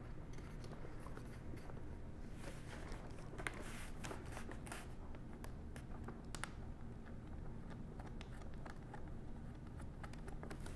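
Faint rustling and light clicks of hands working the foam wing joint of an RC airplane, pressing the wing panel against the fuselage and fitting the thumb screws. The clicks come mostly between two and five seconds in, over a low steady room hum.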